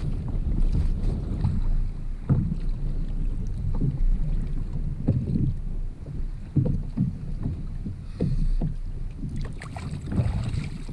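Wind rumbling on the microphone, with irregular knocks and splashes of water against the kayak.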